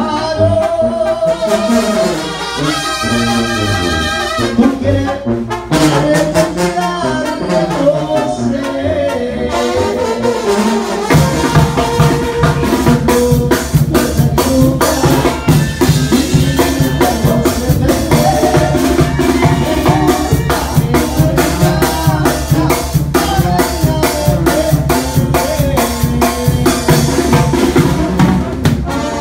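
Live banda brass band playing: tuba and trombones carrying the melody over a drum kit with cymbals. About eleven seconds in, the drums settle into a steady, driving beat under the horns.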